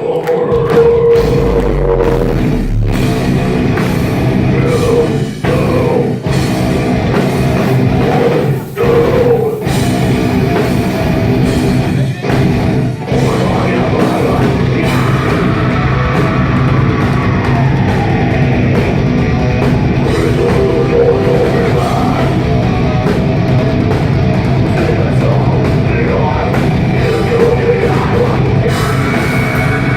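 Live heavy metal band playing loud with drums and guitars, captured by a phone microphone that distorts the sound, with a few short breaks in the music in the first half.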